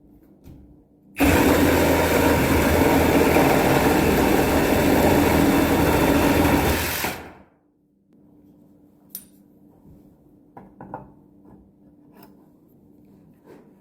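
Milwaukee M18 Fuel cordless reciprocating saw with a 9-inch Diablo nail-embedded wood blade cutting through a piece of wood, with only the weight of the saw on the blade. It starts suddenly about a second in, runs loud and steady for about six seconds, then stops; a few faint clicks follow.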